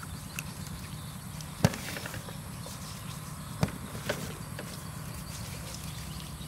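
Salted fish steaks being handled on a stainless steel tray: a few short, sharp knocks as pieces are set down on the metal. The loudest comes about a second and a half in, and two more follow about two seconds later, over a steady low hum.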